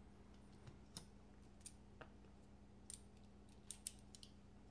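Faint, scattered small clicks and ticks of metal folding-knife parts and a driver being handled, with a faint steady hum underneath.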